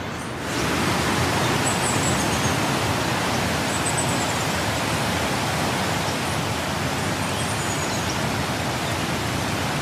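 Waterfall rushing: a steady, loud wash of falling water that grows louder about half a second in, with a few faint high chirps over it.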